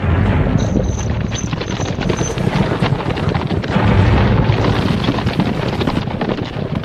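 A team of horses galloping and a wooden stagecoach rumbling past at speed on dirt: a loud, low rumble packed with hoofbeats, loudest about four seconds in.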